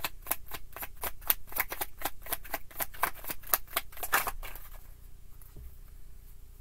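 Tarot deck being shuffled by hand, the cards snapping in a quick steady patter of about five clicks a second that stops about four and a half seconds in.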